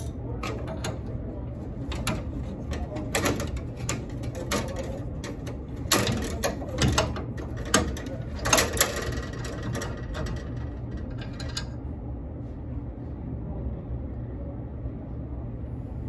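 Adjustable wrench clicking and knocking against a brass flare nut and copper refrigerant lines as the fitting is worked loose, a run of sharp clicks that stops about twelve seconds in. A steady low hum runs underneath.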